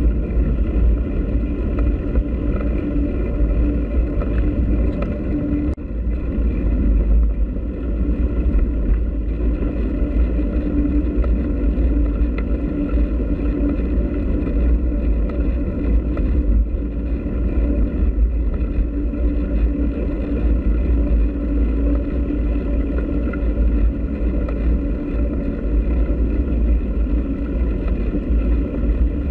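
Steady rumble of wind on the microphone of a bike-mounted camera, with bicycle tyres rolling over a packed dirt track, as the bike is ridden at a constant pace.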